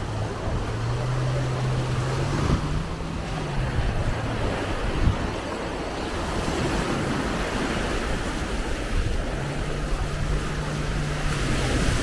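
Small waves breaking and washing up on the beach, a steady rush of surf. A low motor drone from watercraft offshore rises slightly in pitch about a second in, fades out about three and a half seconds in, and returns about nine seconds in.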